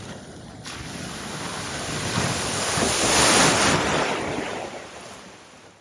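Rushing, splashing water as a vehicle ploughs through deep floodwater in a ford, swelling to its loudest about three seconds in and then fading away.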